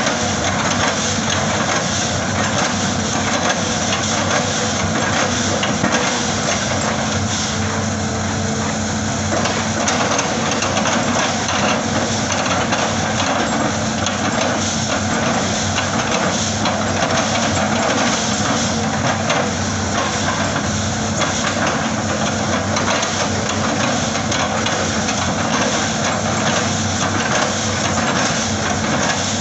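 Hitachi hydraulic excavator's diesel engine running steadily under work, a constant low hum with dense clatter mixed in.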